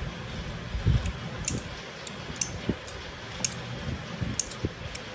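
Small metal parts of an oil pulse tool's pulse unit clicking as they are handled and fitted by hand into the cylinder: several light, sharp clicks at irregular intervals, with a soft handling thump about a second in.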